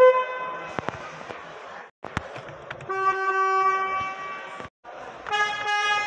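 Three short car-horn honks from different cars, one after another: a 2017 Peugeot 208's horn at the start, a second, lower-pitched horn about three seconds in, and a 2020 Fiat Fiorino's horn near the end.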